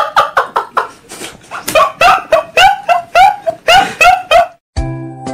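A man's high-pitched laughter in quick, rhythmic bursts that rise and fall in pitch, pausing briefly about a second in and then carrying on. A short musical jingle with held notes starts near the end.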